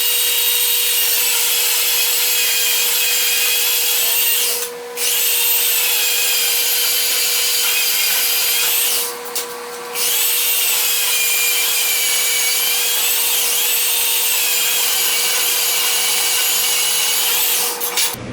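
Power saw cutting steel stock: a loud, steady, high-pitched cutting whine whose pitch sags and recovers as the blade bites. It breaks off briefly twice, about five seconds in and again near ten seconds, and stops just before the end.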